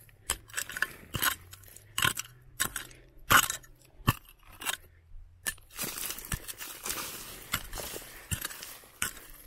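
Loose stones and gravel being handled and dug through by hand: irregular clicks and knocks of rock on rock, then a longer crunching scrape from about six seconds in.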